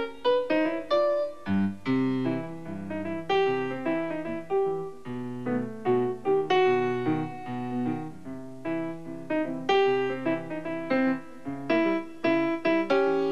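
Piano music playing a steady run of notes over bass notes.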